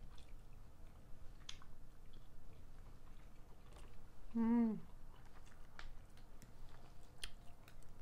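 Chewing and mouth sounds from eating mussels. Mussel shells click sharply now and then as they are picked apart by hand on the tray. Near the middle comes one short hum-like vocal sound.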